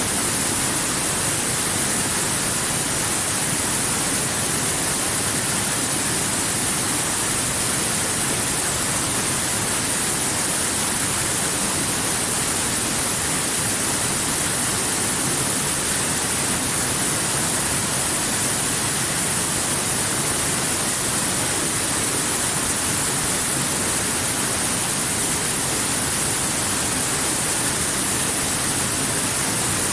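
Waterfall: a steady rush of falling water, unchanging, with a bright hiss in the high range.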